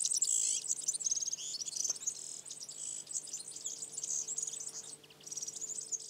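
Bird song recording: small songbirds giving rapid high chirps and trills, with a brief gap about five seconds in.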